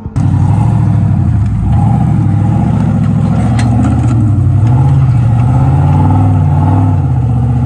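Competition off-road truck engine running at high revs, the pitch wavering up and down as the throttle is worked.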